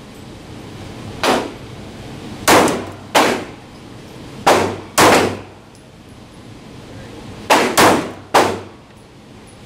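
Ruger LC9 9mm pistol fired about eight times at an uneven pace, some shots in quick pairs, each report echoing off the walls of an indoor range.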